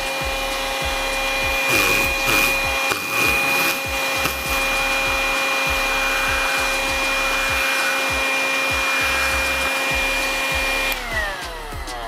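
Kitfort KT-529-2 cordless handheld vacuum running with a steady whine while its nozzle sucks water off a plate. There is a stretch of noisy gurgling about two to four seconds in as the water is drawn up. Near the end the motor is switched off and winds down with a falling whine.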